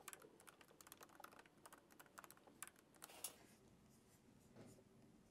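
Faint laptop keyboard typing: a quick run of keystrokes that stops a little over three seconds in.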